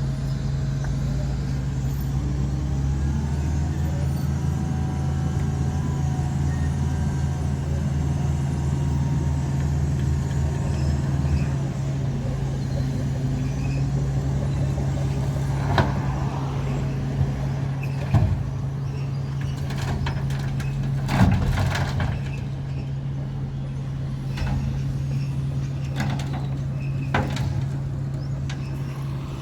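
Heavy diesel construction machinery running steadily with a deep, even drone. A deeper rumble joins in for the first third and then stops, and several sharp knocks come in the second half.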